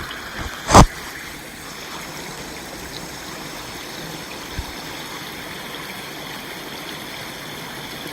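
Water running steadily through a breach punched in a beaver dam, with a single loud, sharp thump about a second in.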